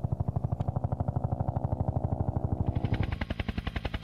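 Bell UH-1 "Huey" helicopter's main rotor beating steadily, about eleven thumps a second. About three seconds in the beat turns lighter and quicker, with more hiss.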